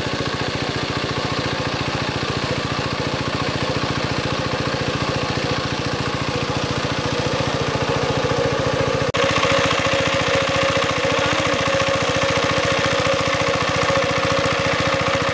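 Engine of a water pump running steadily at a fast, even firing rhythm while it drains a pond. There is an abrupt break about nine seconds in, then it runs on with a steadier hum.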